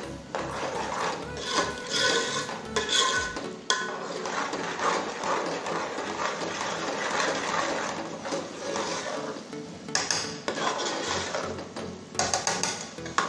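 Metal spoon stirring thick korma gravy in a metal pot, scraping along the bottom and sides with irregular clinks against the pot.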